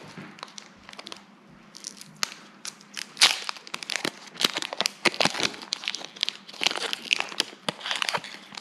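Foil wrapper of a Pokémon trading-card booster pack crinkling and tearing as it is opened, in irregular crackly bursts that are sparse at first and become dense and louder from about two seconds in.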